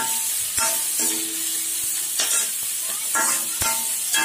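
Chopped onions sizzling in hot oil in a metal kadai while a metal ladle stirs and scrapes them. The pan rings briefly at each of several strokes over a steady frying hiss.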